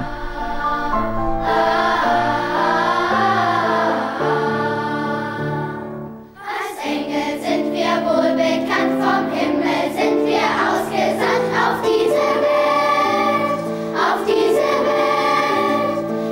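Children's choir singing with Steinway grand piano accompaniment. The sound drops away briefly about six seconds in, then the singing and piano carry on.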